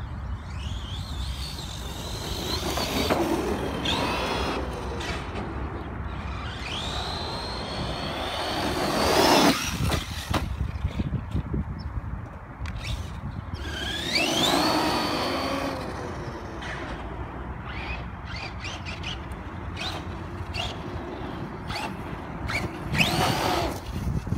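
DHK Maximus 1/8-scale RC monster truck being driven: its 3670 2030kv brushless motor whines up in pitch in several separate bursts as it accelerates, over steady tyre and drivetrain noise.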